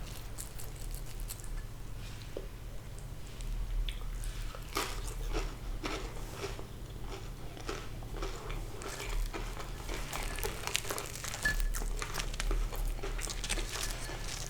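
Biting and chewing of a pan-fried sea bass, its fried crust crunching and crackling in a quick run of short crisp clicks, sparse at first and coming thick from about five seconds in, over a steady low hum.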